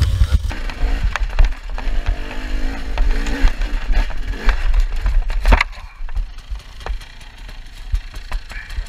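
Enduro dirt bike engine revving unevenly over a rough forest trail, with heavy low rumble. About five and a half seconds in there is one loud knock as the bike goes down, then the engine noise drops much quieter, with small clicks and rustling.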